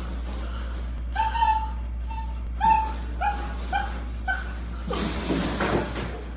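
Husky puppy giving a string of about six short, high-pitched yips and whimpers while climbing a wire playpen, followed about five seconds in by a second-long scuffling burst as it comes down from the pen.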